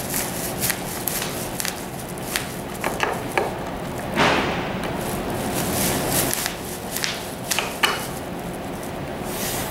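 Scattered small clicks and knocks of a hand screwdriver and plastic parts as screws are driven up into a recliner's plastic arm cap from underneath, with a brief rustle about four seconds in.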